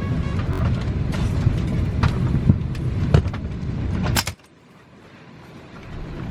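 Low steady rumble of an airliner cabin with scattered clicks and knocks from passengers moving about as they get off. About four seconds in it cuts off abruptly to a much quieter hiss that slowly builds again.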